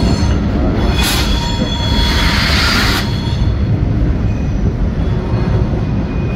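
Freight train of diesel locomotives and covered hoppers running across a steel trestle, a steady low rumble with thin, high wheel squeal. About a second in, a harsh hissing noise rises over it for about two seconds.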